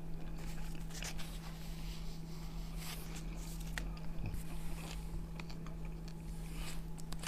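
A person chewing a mouthful of shawarma close to the microphone, with soft wet mouth clicks and smacks. A steady low hum runs underneath.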